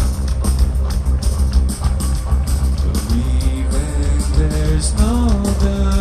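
Live heavy rock band playing loud, with a heavy bass line, guitars and steady drum hits; about halfway in, a voice comes in with long held, bending sung notes.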